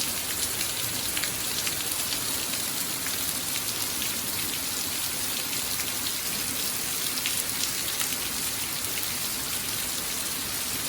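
Torrential rain pouring down steadily, with many separate drops ticking close by.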